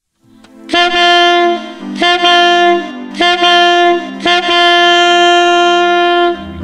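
A wind instrument blowing four long held notes with short breaks between them, the last about two seconds long.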